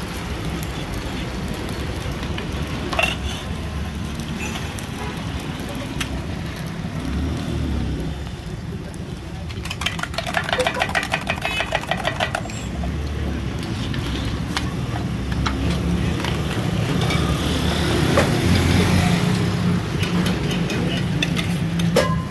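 Street ambience: a steady low rumble of traffic with voices in the background, and a few seconds of rapid rattling about ten seconds in.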